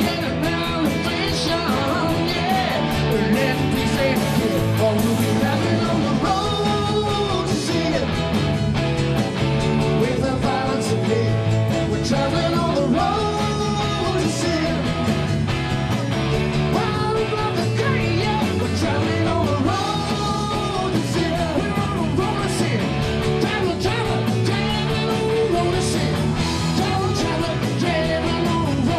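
A live rock band playing on stage: electric guitars, keyboard and bass behind a sung lead vocal line.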